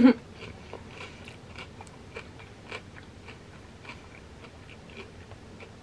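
A person chewing a fried wonton chip loaded with creamy crab rangoon dip, mouth closed: a faint, irregular run of small crunches and wet mouth clicks.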